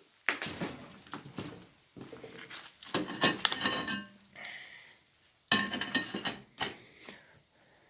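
Metal parts of an old gas cooking stove being handled: a run of clanks and rattles, loudest about three seconds in and again past the middle, with a brief metallic ring after the biggest knocks.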